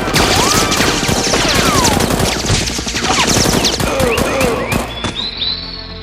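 Rapid automatic gunfire: a sustained volley of many shots with whining glides through it, thinning out near the end, over music.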